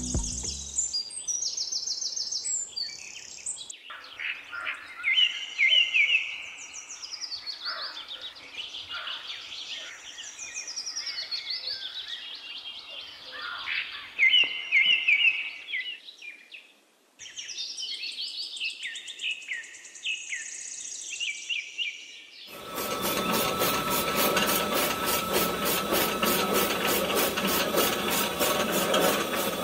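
Birds chirping and singing for most of the stretch. About three quarters of the way through, a small DC electric motor starts abruptly and runs steadily with a fast rattle, driving a miniature chaff cutter's flywheel through a string belt.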